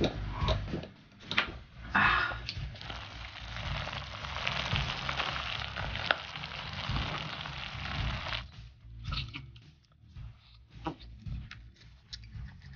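A few gulps of drink, then a clay pot of garlic clams and glass noodles sizzling steadily for several seconds, cutting off suddenly; after that, scattered chewing and slurping sounds of eating.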